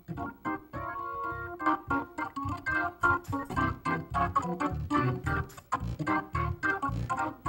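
Gospel praise band playing an instrumental passage: held organ chords over a steady drum beat.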